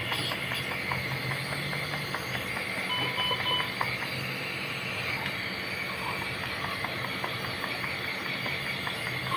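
Steady hiss with a low hum underneath, and about three seconds in a short electronic beep of three quick pips.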